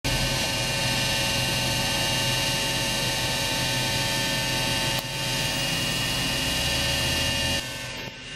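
A steady mechanical drone with a high whine over it, like a heavy engine or pump running. It drops away sharply shortly before the end.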